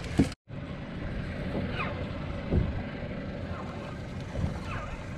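Wind on the microphone and water against the hull of a small boat drifting on calm open sea, with a faint steady hum and a few short falling squeaks. A short thump right at the start is cut off by a moment of silence.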